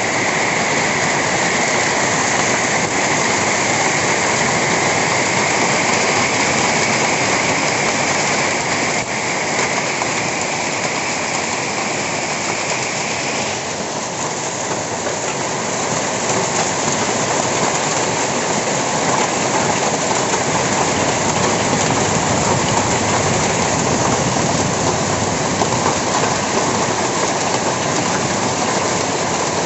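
Hailstorm: hail and heavy rain pelting down in a steady, dense hiss. A higher edge to the hiss drops away about halfway through.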